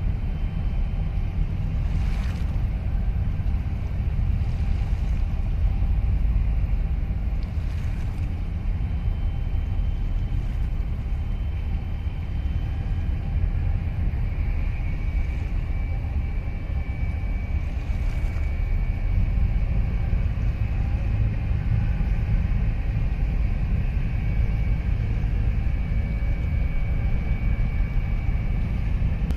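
Steady low rumble, with faint thin high tones drifting in and out.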